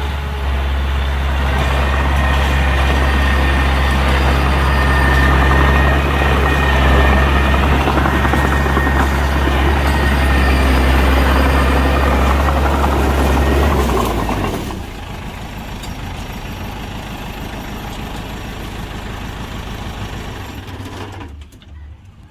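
Heavy diesel engine of earthmoving machinery running loud and steady with a deep hum, then dropping away sharply about two-thirds of the way through, leaving a quieter engine rumble that fades further near the end.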